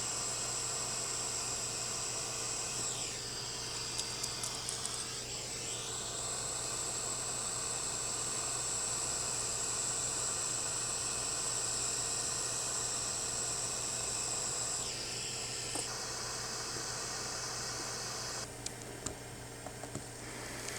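A steady hiss from a tool heating a copper cable lug so that the solder inside it melts, with a few small clicks about four seconds in. The hiss drops a little near the end.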